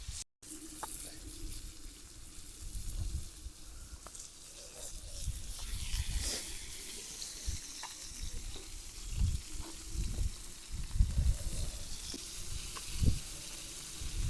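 Food sizzling and frying in a pan over a wood fire, a steady hiss with faint crackles, broken by irregular low rumbles and thuds.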